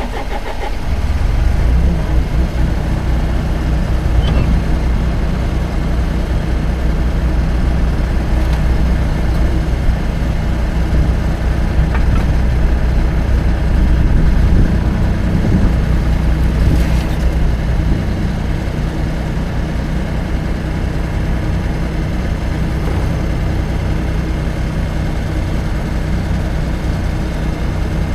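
An engine running steadily under load, picking up about a second in and easing back a little after about sixteen seconds.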